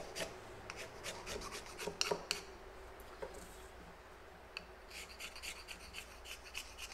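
A bar of polishing compound rubbed back and forth on rough-out leather strops, loading them for stropping: quick rubbing strokes on the flat strop, a short lull, then faster, even strokes on the curved dowel strop from a little past halfway.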